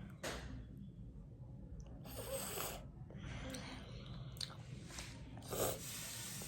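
A person eating Korean noodles close to the microphone: chewing, with a few short noisy bursts of eating sound, the longest about two seconds in.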